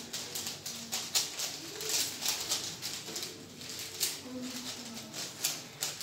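Several 3x3 Rubik's cubes being turned quickly at once: a steady clatter of plastic clicks and rattles from the layers snapping round.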